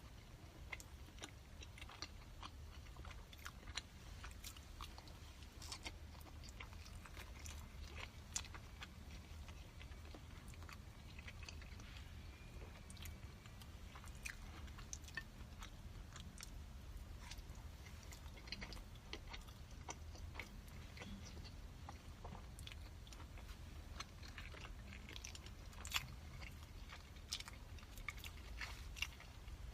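A person chewing and biting food close to the microphone, with many small wet mouth clicks scattered throughout and a sharper click near the end.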